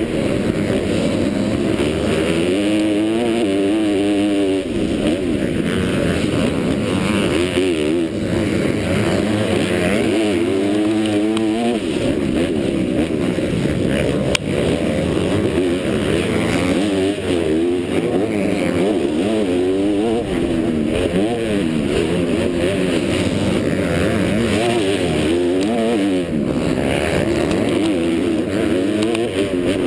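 Motocross bike engine revving hard, its pitch climbing and dropping again and again as the rider accelerates, shifts and backs off, heard from a helmet-mounted camera.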